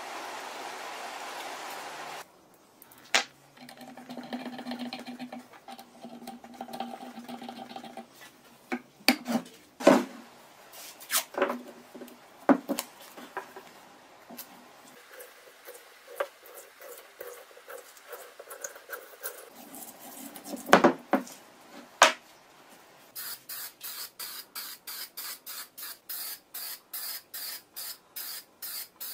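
Workshop sounds of hand work on metal parts: scattered knocks and clicks, then a quick even rasping or ticking of about four strokes a second near the end.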